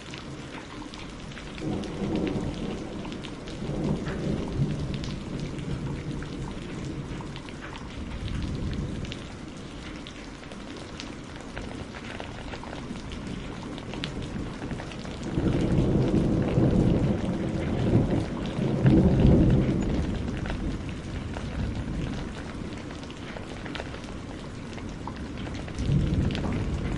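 Thunderstorm: steady rain patter with rolling thunder. The thunder swells about two seconds in and again more loudly from around the middle, rumbling on for several seconds.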